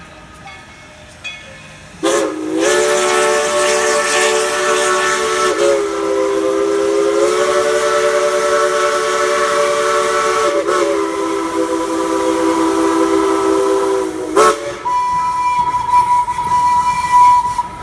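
Steam locomotive's chime whistle sounding about two seconds in, a chord of several tones held for about twelve seconds that dips in pitch twice as the valve is worked, over a hiss of steam. After it cuts off, a single thinner high tone goes on with the steam hiss.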